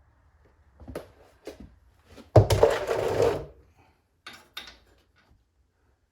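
Clunks and a clatter of tools or parts being handled: two short knocks, then a louder rattling clatter of about a second roughly two and a half seconds in, then a few light clicks.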